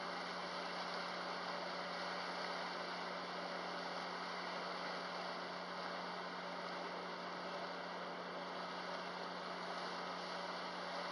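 The steady hum of the ferry Yurimaru's engines under a constant rushing wash from the boat's wake.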